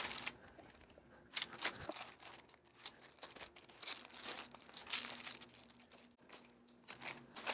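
Parchment paper crinkling and rustling in short, irregular spells as thick cooked polenta is spread and pressed down by hand into a paper-lined baking pan.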